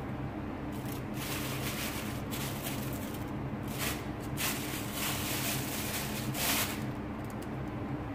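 Plastic food-prep gloves rustling and crinkling in short irregular bursts as chicken pieces are pressed and turned in a bowl of flour, over a steady low hum.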